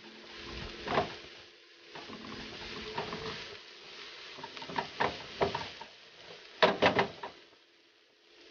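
Chopped scallions and onion sizzling in a frying pan while being stirred with a spatula, the utensil scraping and tapping against the pan a few times, with a quick run of loud taps near the end as it is knocked against the pan.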